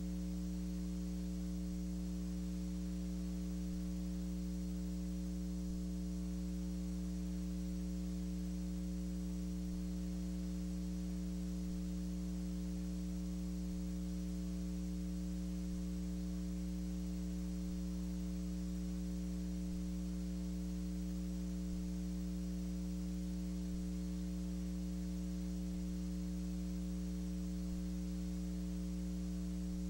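Steady electrical mains hum with a buzz of its overtones over faint hiss, unchanging throughout; the old film itself carries no sound.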